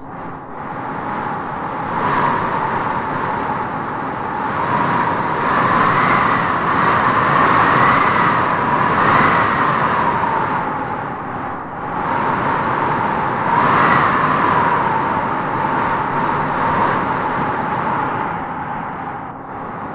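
Wind howling in gusts: a steady rush with a high moaning tone that swells and fades, strongest about 2 seconds in, again from about 5 to 10 seconds, and around 14 seconds.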